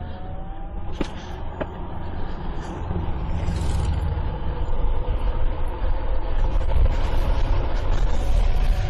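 Electric bike motor whining as it accelerates, its pitch rising and then holding steady, under a low rumble that grows louder as speed builds. Two short clicks sound between one and two seconds in.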